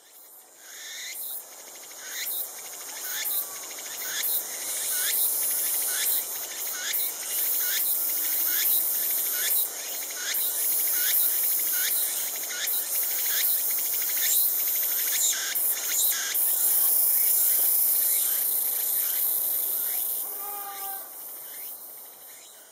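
Tsukutsukuboushi cicada (Meimuna opalifera) singing. The call builds up over the first few seconds into a fast run of repeated rising phrases, about one and a half a second, turns into a steadier buzz late on, then fades away near the end.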